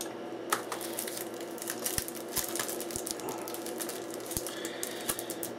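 Shrink-wrap plastic being peeled off a Blu-ray case: dense crinkling and crackling with scattered sharp clicks, starting about half a second in.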